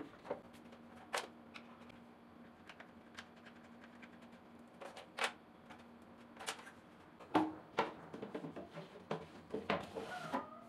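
Scattered light knocks and clicks of a wooden drawer being set down and fitted into a wooden trolley frame, turning into a quicker run of knocks and scraping in the last few seconds as the drawer is slid in and out.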